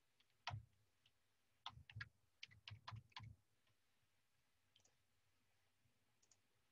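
Faint clicks of a computer mouse, about nine short clicks in a loose run between half a second and three and a half seconds in.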